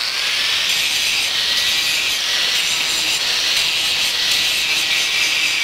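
Small angle grinder with a grinding disc grinding down a steel weld bead, dressing the weld around a nut on a steel plate. It makes a loud, steady grinding hiss with a thin motor whine underneath.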